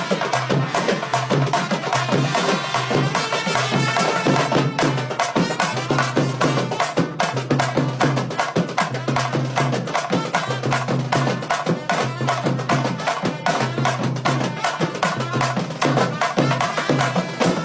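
Music driven by fast, dense drumming and clicking wood-block-like percussion, keeping a steady rhythm throughout.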